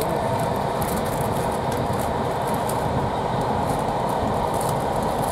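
Steady running noise of a passenger railway carriage at speed, heard from inside: a continuous rumble of wheels on rails and the coach body, with no breaks or single loud events.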